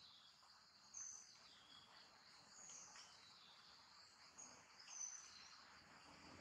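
Faint outdoor ambience: a steady high-pitched insect drone with a few short bird chirps, about a second in, near three seconds and again about five seconds in.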